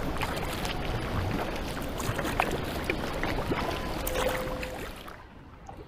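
Inflatable kayak being paddled on a river in the rain: a steady rush of water with many scattered drips and small taps. The sound drops away about five seconds in.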